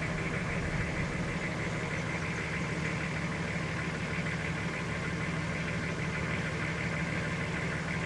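An engine idling steadily with an even, unchanging hum.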